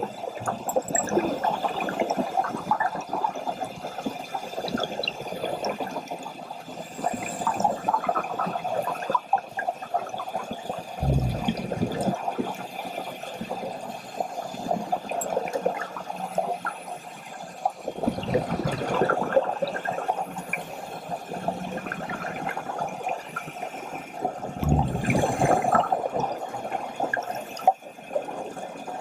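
Underwater sound picked up by a diver's camera: steady watery hiss, with three louder surges of scuba exhalation bubbles, about every six or seven seconds.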